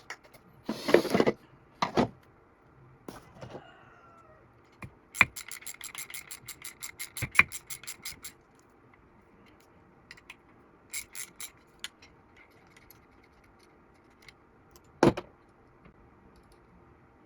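Hand tools and small metal parts handled while a septic air pump is being taken apart: a short clatter, then a rapid, even run of clicks, about eight a second for some three seconds, a few scattered clicks, and one sharp knock near the end.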